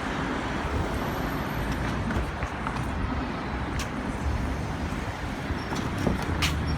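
Steady road traffic noise: the broad rumble of vehicles moving on the highway, with a few short faint ticks.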